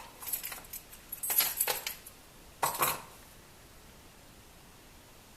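Small metal retaining screws clinking and rattling together as they are handled, in three short bursts over the first three seconds.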